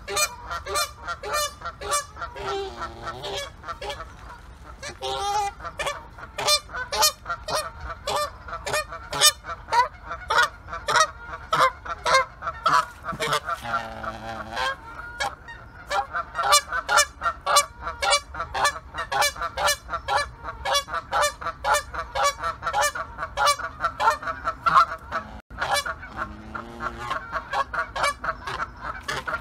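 Several geese honking: short, repeated honks that thicken into a dense, overlapping chorus of several calls a second from about five seconds in, with a few lower, longer calls among them.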